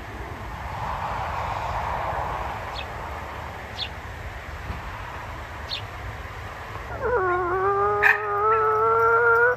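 A dog's drawn-out howl, starting about seven seconds in and held nearly level at one pitch for over two seconds. Before it, only a soft hiss with a few faint, short high chirps.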